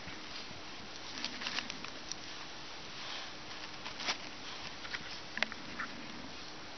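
Scattered small crackles and snaps from thin twigs and kindling being set into a small, just-lit campfire, a few sharper clicks among them, over a steady hiss.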